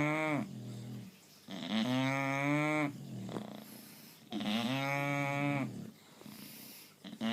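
A bulldog snoring in its sleep with a deep, pitched, cow-like moo on each breath. Each snore lasts about a second and sags slightly in pitch at its end. They come roughly every three seconds, with quieter breathing in between.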